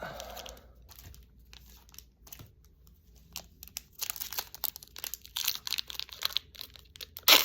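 A baseball card pack's wrapper crinkling as it is handled and torn open: a few light crackles at first, then steady crinkling from about halfway, with one loud crackle near the end.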